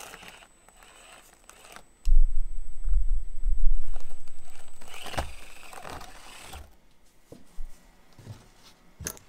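Axial SCX24 micro RC crawler's tires crunching and scraping over foam rock terrain. About two seconds in, a loud low rumble starts suddenly and fades out over the next four seconds or so.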